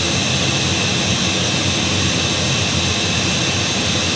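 Steady machine noise from a CNC machining center running: a dense, even rush with a few faint high whines over it.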